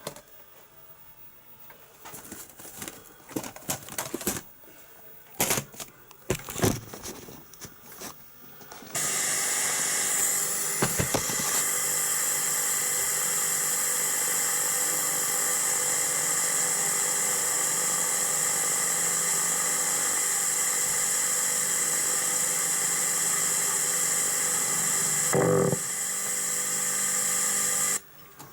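Strange electronic noise on a VHS tape's audio track at the end of the tape. Crackling and clicks come first; about nine seconds in they give way to a loud, steady buzz with many overtones and a hiss, which cuts off suddenly near the end.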